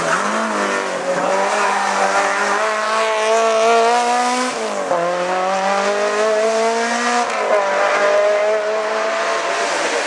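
Renault Clio rally car's engine accelerating hard uphill, its pitch climbing through the gears, with two quick upshifts, about halfway through and again about three-quarters of the way through.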